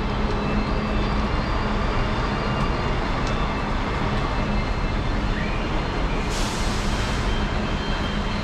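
Steady city traffic rumble, with a short high hiss about six seconds in.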